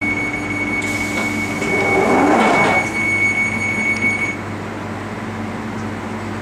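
London Underground 1995 Stock train's doors closing: a steady high door-warning tone sounds while the sliding doors shut with a louder rush about two seconds in. The tone stops about four seconds in, leaving the train's steady hum as it stands at the platform.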